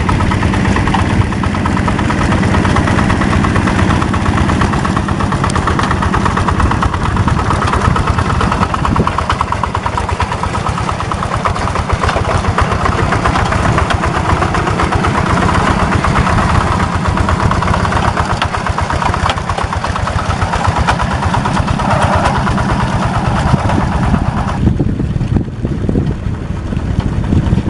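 The single-cylinder diesel engine of a Yanmar walk-behind hand tractor runs steadily with a fast, even chugging while it pulls a plow and cage wheels through paddy mud. The sound turns duller near the end.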